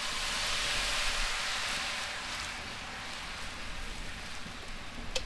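White wine poured into a hot cast-iron skillet of onions, garlic and mushrooms, hissing and sizzling as it hits the pan; the hiss swells in the first second or so, then slowly dies down as the pan is deglazed.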